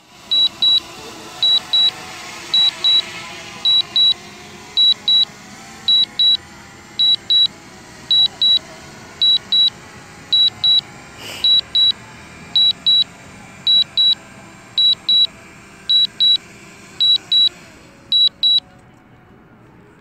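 DJI Fly app's landing alert on the phone controlling a DJI Mavic Mini: short high-pitched double beeps, about one pair a second, sounding while the drone descends to land. The beeping stops shortly before the end, as the altitude reaches zero.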